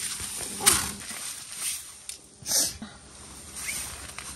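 Rustling of tent fabric and gear as someone moves about and handles bags inside a small tent, with a short click just under a second in and a louder breathy swish about two and a half seconds in.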